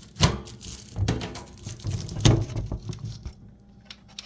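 Plastic knocks, clicks and light rattling from the touchless trash can's battery compartment as it is being opened. The louder knocks come in the first two and a half seconds, then a few soft ticks.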